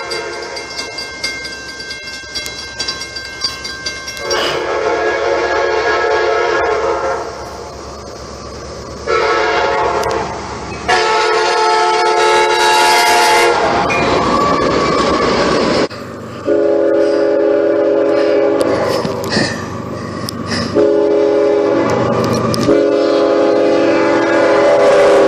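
BNSF freight locomotive's air horn sounding a series of long blasts as the train approaches and passes a grade crossing at speed. The horn's pitch drops about halfway through as the locomotive goes by. Freight cars rumble and clack past under it.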